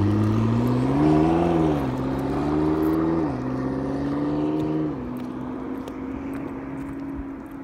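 McLaren MP4-12C's twin-turbo V8 accelerating hard. Its note climbs, then drops with each of three quick upshifts, and the engine grows fainter as the car pulls away.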